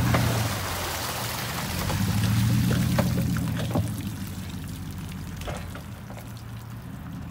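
Water pouring and dripping off a boat hull and trailer being hauled out of the water, with scattered drips, over the low hum of a vehicle engine that swells for a second or two.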